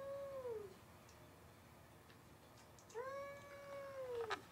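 Stray cat yowling in the standoff after a cat fight: two long drawn-out calls that hold their pitch and then drop away at the end, the first fading out under a second in and the second starting about three seconds in. A few sharp clicks near the end.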